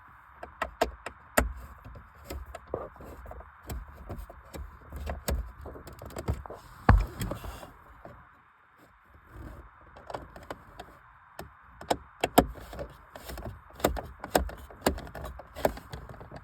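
Plastic dashboard trim and screws being handled and fitted by hand: an irregular run of sharp clicks and knocks, a few of them louder, over a steady faint hiss.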